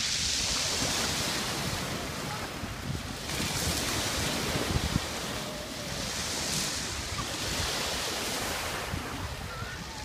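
Small sea waves breaking and washing over a pebble shore, the hiss of the surf swelling about three times, with wind rumbling on the microphone.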